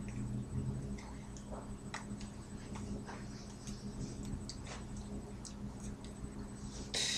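Faint scattered ticks and small taps over a steady low hum, from a person's hands and sleeves moving while signing. A short hiss comes near the end.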